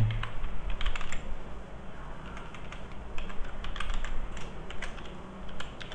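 Typing on a computer keyboard: irregular runs of keystroke clicks, over a low steady hum.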